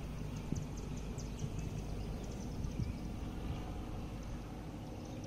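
Cessna 172 Skyhawk's piston engine and propeller droning steadily overhead, the sound easing slightly as the plane moves off.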